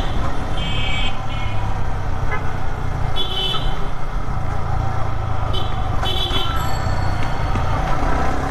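Motorcycle riding through city traffic: a steady rumble of engine and wind, with short vehicle-horn toots sounding several times, about a second in, around three seconds and again around six seconds.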